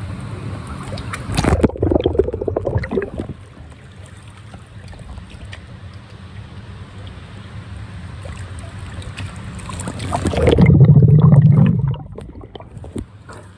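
Water splashing and gurgling around a camera as it goes under the surface of a large aquarium tank, then muffled underwater noise. A second loud, deep rush of water and bubbles comes near the end.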